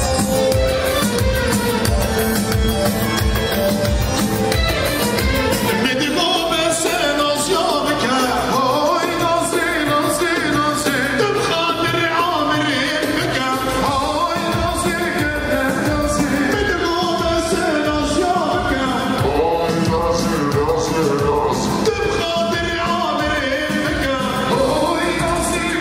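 Live wedding band with an amplified singer over keyboard and a steady drum beat, played for a line dance. The low drum beat drops out about six seconds in and comes back about eight seconds later.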